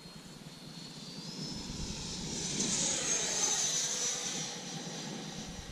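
90 mm electric ducted fan of a Freewing F-16 V2 RC jet whining as the model flies past. It grows louder to a peak about three seconds in, then fades a little, its high tone rising and then easing slightly.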